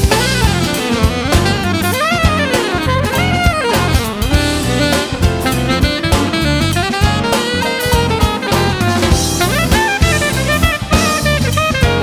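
Jazz recording: a saxophone plays a winding melodic line that swoops up and down in pitch, over a busy drum kit with cymbals.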